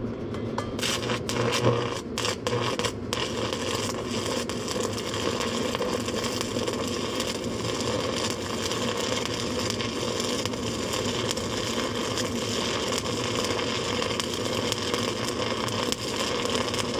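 Stick-welding arc burning a 1/4 inch 7018 rod at about 250 amps. The arc strikes about a second in with a few sharp sputters, then settles into a steady, dense crackle.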